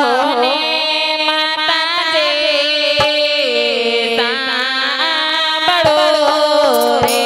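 A single voice singing a slow, ornamented Gujarati farewell song for a departing daughter, over a steady held drone, amplified through a PA.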